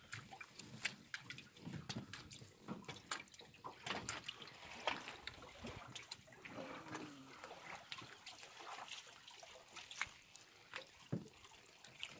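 Water dripping and splashing off a fishing net as it is hauled hand over hand into a small metal boat, with many small ticks and knocks from the net and hull.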